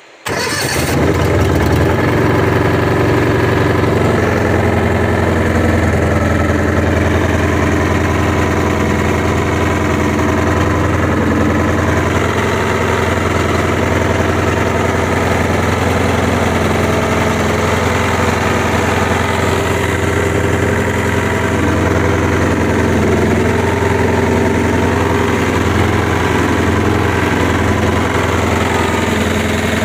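Honda GX690 air-cooled V-twin four-stroke engine running steadily, its sound cutting in abruptly just after the start and then holding an even pitch and level.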